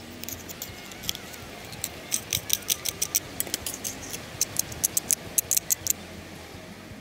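Utility knife blade scraping the burnt crust off a metal ball held in pliers. It makes a run of quick, sharp scratchy strokes that come thickest in the second half and stop about a second before the end.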